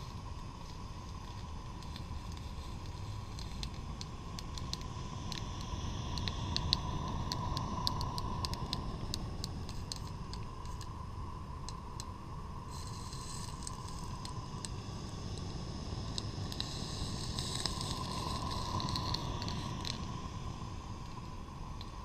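A garden-scale freight train passes close by on the near track. Its wheels click over the rail joints for several seconds, and then a steady hiss sets in, over a constant faint hum.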